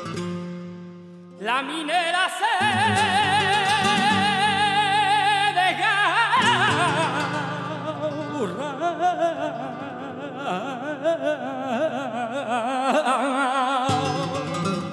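Flamenco cantaor singing a cante minero with flamenco guitar accompaniment. After a moment of guitar alone, the voice enters about a second and a half in and holds a long, wavering note. It then climbs and winds down through heavily ornamented melismatic phrases over the guitar.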